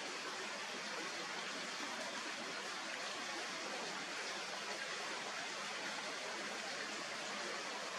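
Steady, even rushing noise with no calls or other distinct sounds.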